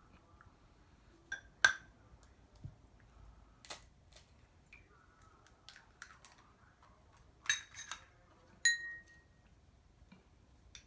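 Sharp taps and clinks of kitchenware against a ceramic bowl, spaced out over several seconds; one near the end leaves a short ringing tone.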